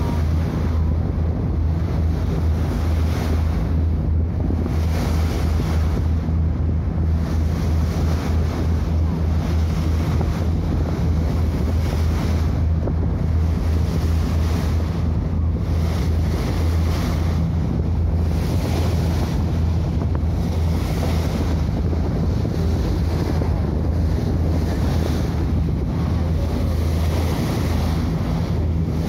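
A whale-watching boat's engine droning steadily under way, with wind buffeting the microphone and a wash of water noise.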